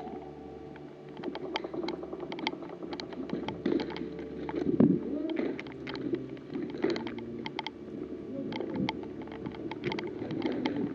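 Irregular sharp clicks and crackles, several a second, over a low rumbling background noise.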